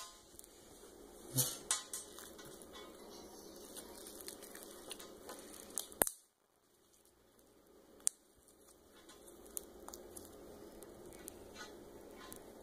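Faint handling and squishing of a lump of purple slime being squeezed by hand close to the microphone, broken by a few sharp clicks and taps, the loudest about six seconds in.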